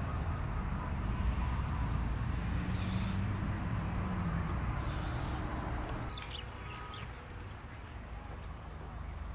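Low, steady rumble of wind on the microphone with a faint low drone under it. The rumble eases about six seconds in, and a few short bird chirps follow.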